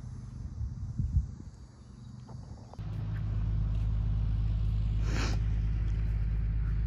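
Wind buffeting a phone microphone by a lake, a loud steady low rumble that starts suddenly about three seconds in. Before it there is quieter open-air ambience with a brief knock about a second in.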